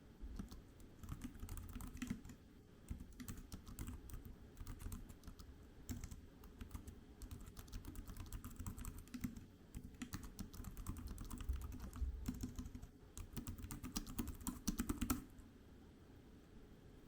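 Typing on the keys of a GreenLaw keyboard case for the iPad mini 6: quick runs of key clicks with short pauses between them, stopping near the end.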